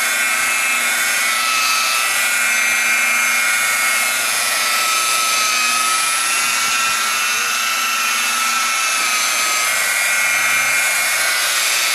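Car polishing buffer running steadily with a whine whose pitch wavers slightly, machine-polishing an oxidized car hood to take out the haze left by 2000 and 3000 grit wet sanding.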